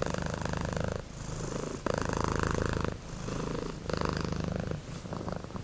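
Domestic cat purring steadily, in cycles of about a second that swell and ease with each breath in and out.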